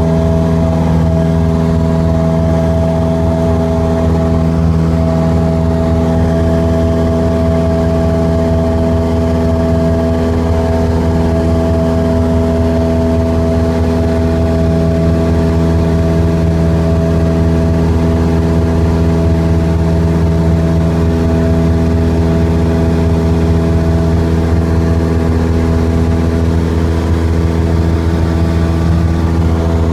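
Cessna 150's four-cylinder Continental O-200 engine and propeller running steadily in flight, heard from inside the cabin. It makes a constant, unchanging drone.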